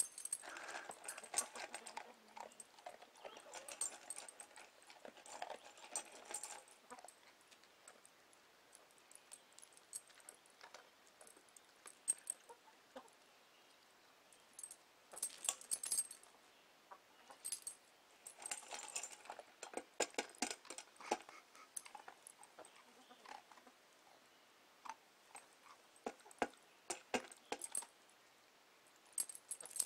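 A dog eating dry kibble from a stainless steel bowl: bursts of crunching and sharp clicks and clinks against the metal, with quiet gaps between.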